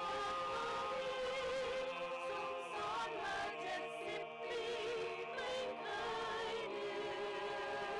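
Choir of children and adults singing with vibrato: a long held chord, changing to moving notes about two and a half seconds in, then settling on held notes again near the end.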